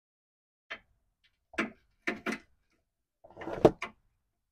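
A steel bolt being fed by hand through a radiator's lower mounting bracket, knocking and clicking against the metal: about half a dozen short knocks, the loudest a little past three and a half seconds in.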